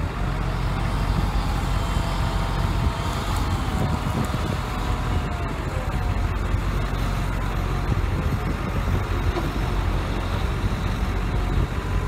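Steady low engine rumble heard from inside a vehicle, with a faint wavering engine note about halfway through.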